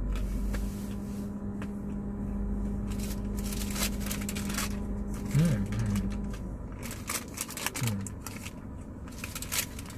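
Crinkly rustling of plastic packaging in irregular bursts, over a steady low hum that stops about six seconds in.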